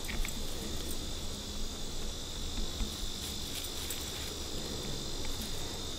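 Steady, high-pitched insect chorus, a continuous trill that holds one pitch without a break, over a low rumble.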